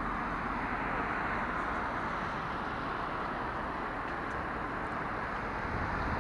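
Steady rushing drone of a vehicle under way, even throughout with no separate knocks or changes.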